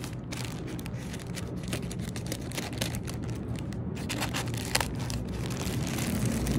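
Thin plastic mailer bag crinkling and rustling in many small sharp crackles as a utility knife slits it open and hands pull the opening apart.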